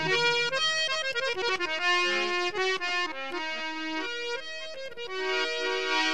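Harmonium playing a quick melodic interlude between sung lines of a bhajan, its notes changing several times a second.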